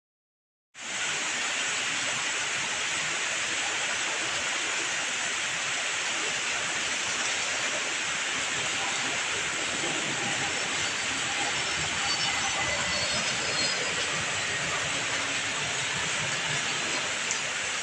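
Airbus airliner's jet engines giving a steady, even rushing roar that starts abruptly about a second in after dead silence.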